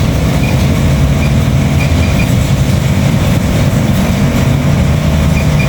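Car AC service machine running steadily with a low mechanical rumble as it charges refrigerant into the system. A few short, faint high beeps come from time to time.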